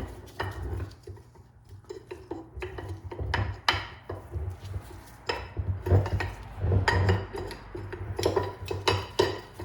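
Steel parts of a double Cardan U-joint clinking and knocking together as the joint is handled and taken apart: a dozen or so irregular light metallic knocks and clinks.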